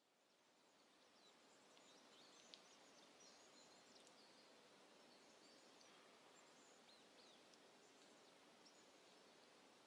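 Near silence: faint outdoor ambience that fades in over the first couple of seconds, with a few brief, faint high bird chirps.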